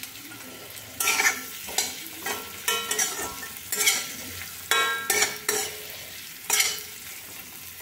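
Metal spatula scraping and stirring fried eggs and potatoes in a thick spice masala in a metal kadai, about a dozen irregular scrapes with a ring of the pan, over a light sizzle of oil: the masala being sautéed (kosha) for an egg curry.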